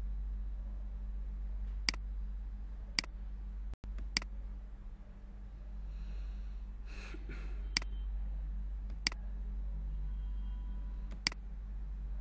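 Computer mouse clicking six times, single sharp clicks about one to two seconds apart, over a steady low electrical hum. A soft breathy noise comes in the middle.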